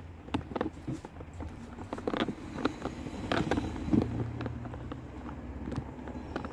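Scattered light clicks and knocks from handling and pressing a plastic window weatherstrip molding and its clips onto a car door, over a low steady rumble.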